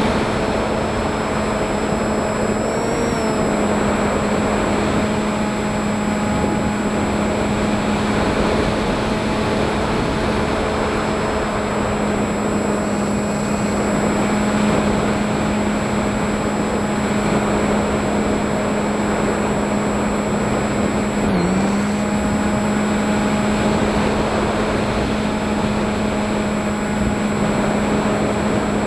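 FPV drone's electric motors and propellers running with a steady buzzing hum, dipping briefly in pitch about twenty-one seconds in.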